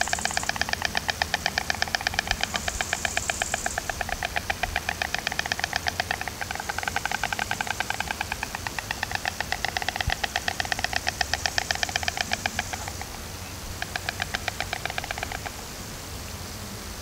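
White storks clattering their bills: a rapid wooden rattle of about eight to nine strokes a second, going on in long bouts. After a short pause near the end comes a last shorter bout, which stops about two seconds before the end, leaving a faint hiss.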